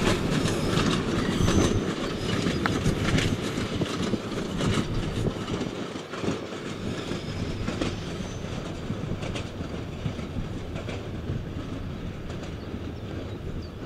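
Loaded peat wagons of a narrow-gauge Bord na Móna train rattling and clicking over the rail joints as the train draws away, the sound slowly fading.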